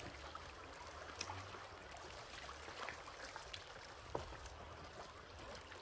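Faint river water trickling around a bamboo raft, with a low rumble of wind on the microphone in patches and a few soft clicks.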